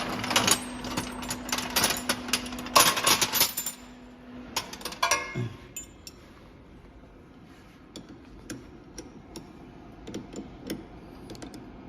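Metal clinking and clicking of tools and machine parts being handled on a soldering machine, dense for the first four seconds or so with a low steady hum that stops about four and a half seconds in, then a few sparse clicks.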